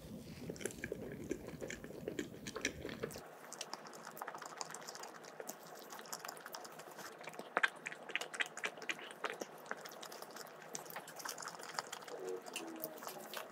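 Close-up soft, wet chewing of a spongy cheese castella with whipped cream, many small moist mouth clicks and smacks.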